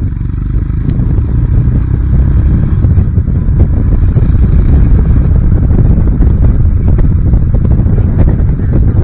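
Royal Enfield Himalayan's single-cylinder engine running at road speed, mixed with heavy wind rush on the microphone.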